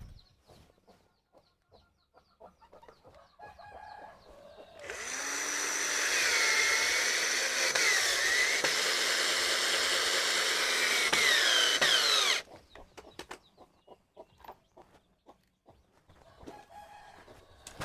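A power tool runs at full speed for about seven seconds: it starts suddenly about five seconds in, its pitch wavers under load, and it cuts off abruptly. Faint clucks and small knocks sound before and after it.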